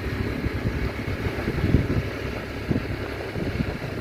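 Wind buffeting a phone microphone as a rough, fluttering rumble, over a motor scooter's engine running.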